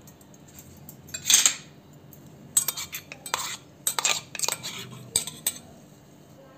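Steel spoon and stainless-steel mixer jar clinking and scraping against each other and a steel pot as paste is scraped out of the jar. There is one longer scrape about a second in, then a quick run of clinks and scrapes.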